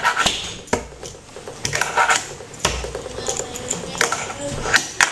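Tech Deck fingerboards clicking and clattering on a wooden tabletop as they are handled and set up: irregular sharp clicks, a few of them with a dull thump.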